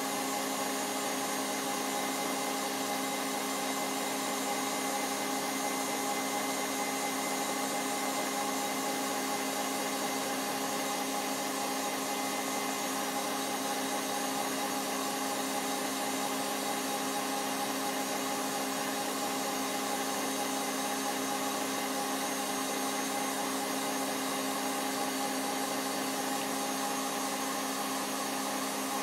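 KitchenAid stand mixer running with its wire whisk beating batter in a glass bowl: a steady motor hum that holds the same pitch throughout.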